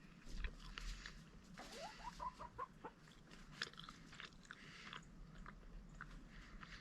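Faint chewing and mouth clicks as someone bites into and chews a piece of cooked possum meat. A chicken clucks in a quick run of short rising notes about two seconds in.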